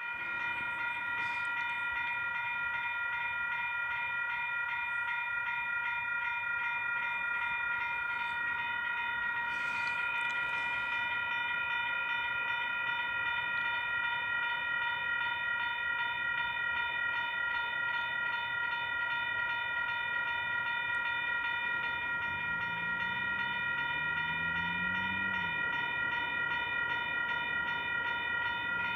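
Level crossing warning bell ringing continuously with a fast, even repeat. A low tone rises and falls underneath it late on.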